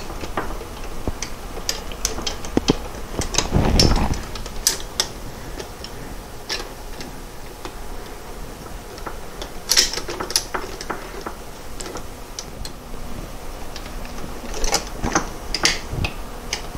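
Metal shaft being worked down through the shift forks and gear stack of a VW 020 transmission by hand: scattered light metal clicks, taps and scrapes, with a heavier rub about three and a half seconds in. It is a tight fit.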